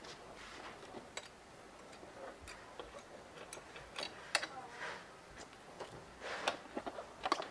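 Faint, irregular metallic clicks and taps of a hand wrench working the seat-mounting nut on a Rusi Classic 250 motorcycle, with a few sharper clicks about four seconds in and near the end.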